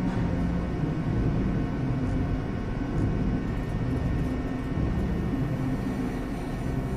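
A steady low rumble with faint steady hums above it, unchanging throughout.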